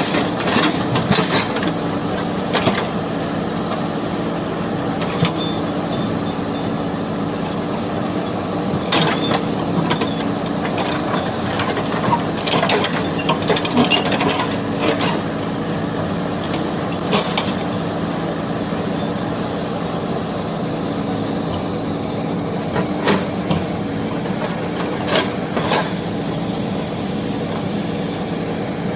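Backhoe loader's diesel engine running steadily, with scattered sharp clanks and knocks, bunched in the middle and again near the end.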